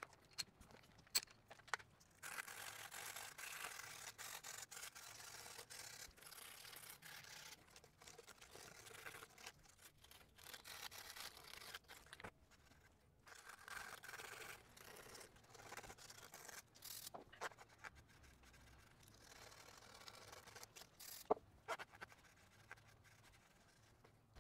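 Hand sanding with coarse 40-grit sandpaper inside the bearing fitting of a carbon bike frame's head tube: a faint, repeated rasping scrub that starts about two seconds in and pauses briefly now and then. It is roughing up the carbon surface so epoxy filler will adhere.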